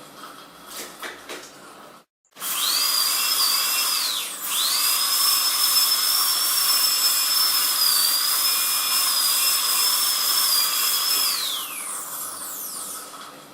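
Dentist's drill whining at high pitch: it spins up about two seconds in, dips briefly, spins up again and holds a steady whine for about seven seconds, then winds down with a falling pitch near the end. A few faint clicks come before it starts.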